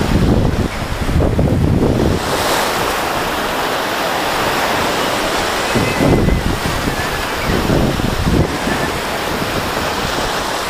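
Small sea waves breaking and washing up the sand at the shoreline, with wind buffeting the microphone in gusts near the start and again in the second half.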